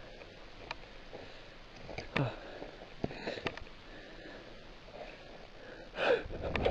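A man sniffing and breathing, with a few faint clicks.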